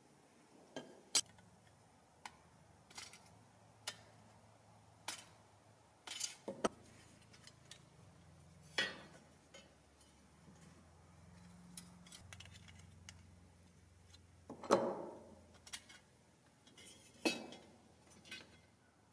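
Scattered metallic clicks and clinks of pliers working the thin stamped-steel body of an old toy plane, prying and bending its tabs to take it apart. They come every second or so, with the two loudest near the end.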